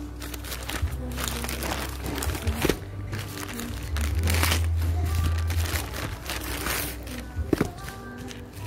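Plastic courier mailer bags crinkling and rustling as hands handle and open them, with music playing underneath.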